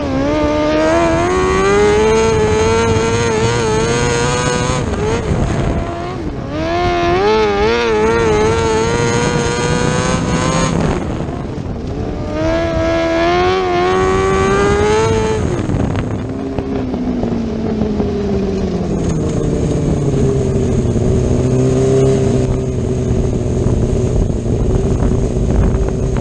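A 600cc micro sprint car's four-cylinder motorcycle engine, heard from onboard, running flat out: its pitch climbs at high revs down the straights and dips briefly between them, three times. After that the revs wind down, and for the last ten seconds the engine runs low and unsteady as the car slows.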